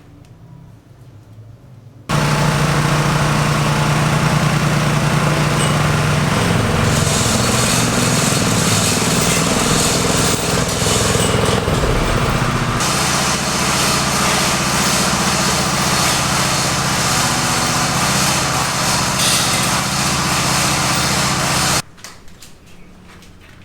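A small engine running steadily, cutting in abruptly about two seconds in, changing in tone twice, and cutting off abruptly near the end.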